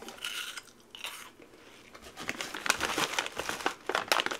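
Clear plastic bag of freeze-dried candy crinkling as it is handled, the crackling growing dense about halfway through, with faint crunching of freeze-dried candy being chewed before that.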